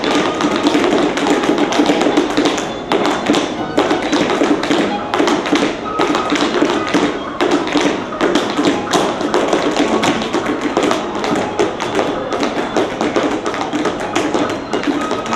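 Tap shoes striking wooden dance boards in fast, dense rhythmic taps from several tap dancers at once, over background music.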